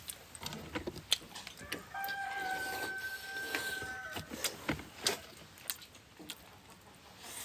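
A rooster crowing once, a single held call lasting about two seconds, starting about two seconds in. A few sharp clicks and knocks sound around it.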